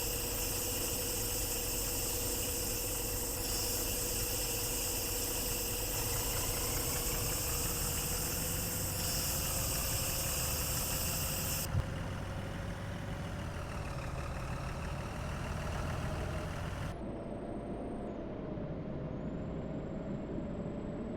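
Vehicle engine running steadily, a low droning hum whose pitch creeps slowly upward, with a single click about halfway through.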